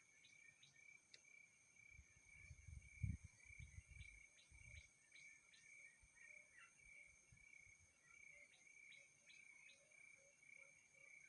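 Faint outdoor ambience: a steady high insect drone with scattered short chirps, and a few low thumps about two to five seconds in.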